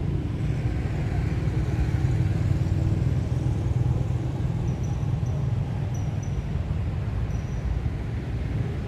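Steady low outdoor rumble, with a few faint, short high chirps from about halfway through.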